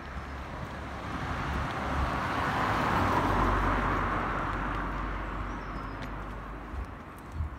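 A car passing along the street, its engine and tyre noise swelling to a peak about three seconds in and then fading away.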